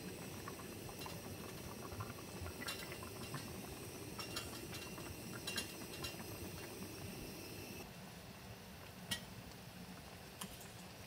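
Stew bubbling and simmering in a stainless steel pot, with light clinks now and then. About eight seconds in the bubbling fades back, and a few sharp knife taps on a bamboo cutting board follow as a green onion is cut.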